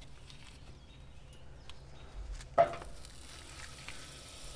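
A pat of butter dropped into a skillet on a camp stove, landing with one sharp clunk about two and a half seconds in. A low steady hum runs under it.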